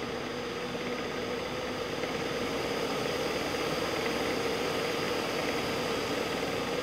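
A San Ace B97 electric blower fan running and driving the spinning blade rows of a model gas turbine made from bottles and cans: a steady whir with a low hum and a faint high whine. It grows slightly louder over the first few seconds as the speed knob is turned up, then holds steady.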